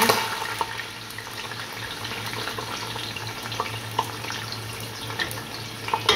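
Sliced onions sizzling in hot ghee in a stainless steel pot: a steady hiss with scattered crackles, after they drop in with a loud splash at the very start. A spatula starts stirring near the end.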